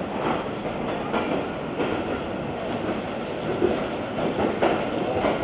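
Railway passenger coaches of a departing train rolling past, with a steady rumble and wheels clicking over rail joints at uneven intervals.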